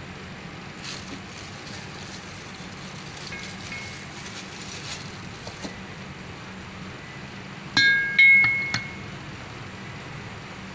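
Steel water-pump parts clinking together on the workbench: a quick cluster of sharp metal clinks with a short bright ring, about eight seconds in. Under it runs a steady low hum.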